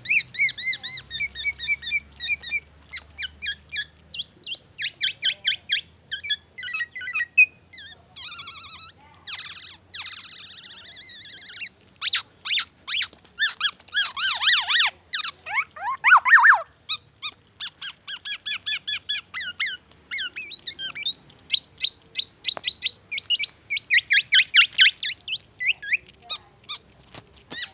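Black-naped oriole singing a varied song of rapid, high, repeated notes in changing phrases, with falling sweeping notes near the middle, mimicking the song of the white-rumped shama.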